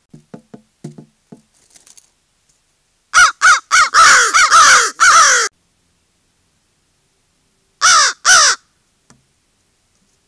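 Crows cawing close by: a quick run of about six loud caws, each falling in pitch, then two more a couple of seconds later. A few soft taps come first.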